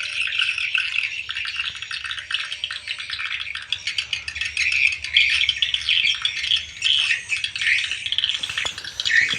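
Many swiftlets twittering at a swiftlet-farming house: a dense, unbroken chatter of high chirps.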